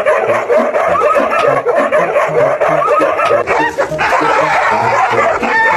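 A crowd of husky and golden retriever puppies yapping and howling all at once, a loud continuous jumble of overlapping high calls that stops abruptly.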